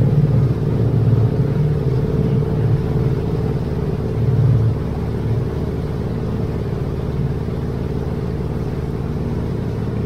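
Boat engine running steadily at cruising speed, an even drone that eases off slightly about five seconds in.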